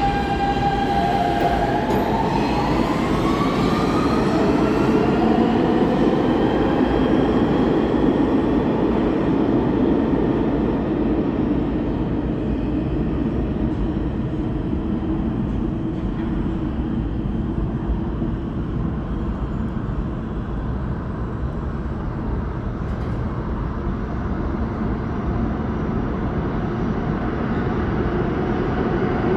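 New York City subway train pulling out of an underground station: its traction motors whine, rising in pitch over the first few seconds as it accelerates. Then a steady low rumble of the train running off through the tunnel.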